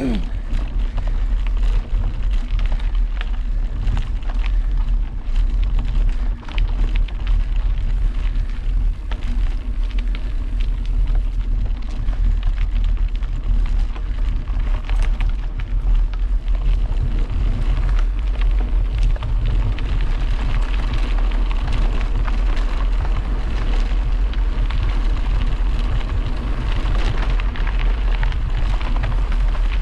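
Wind buffeting the microphone of a moving camera, a steady low rush, with many small knocks and rattles throughout. The noise gets brighter from about twenty seconds in.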